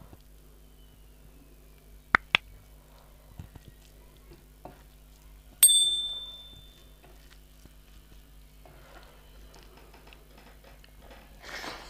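Two quick mouse-click sound effects, then about three seconds later a single bright bell ding that rings out and fades over a second or so, from a subscribe-button animation. Near the end, soft squishing of rice and curry being mixed by hand.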